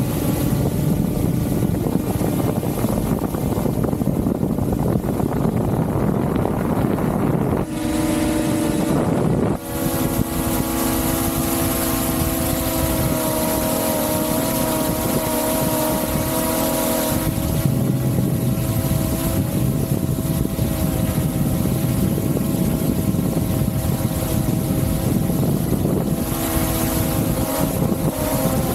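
Quadcopter drone's electric motors and propellers whining steadily at close range, over a broad rushing noise of prop wash. The whine changes pitch a few times as the motors change speed, with a brief dip about ten seconds in.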